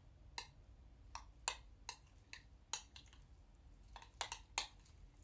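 Light clicks and taps of a utensil against a bowl, about a dozen at an uneven pace, as crushed boiled egg and Kewpie mayo are worked together.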